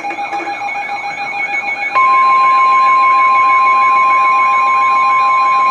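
NOAA Weather Radio alert sounding: a warbling alarm over rapid beeping. About two seconds in it is joined by the loud, steady 1050 Hz warning tone that announces a severe thunderstorm warning.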